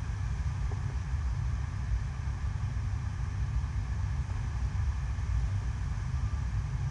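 Steady rush of water pumped in a fast, thin sheet over an indoor artificial surf wave, heavy with low rumble.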